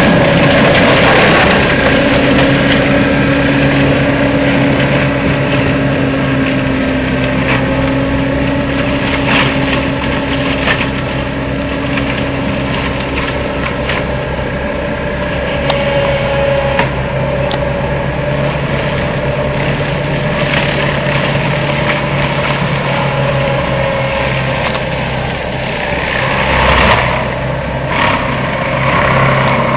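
Tracked skid steer's diesel engine running steadily under load while a Seppi MiniForst hydraulic forestry mulcher works, with scattered short knocks and cracks throughout and a louder stretch near the end.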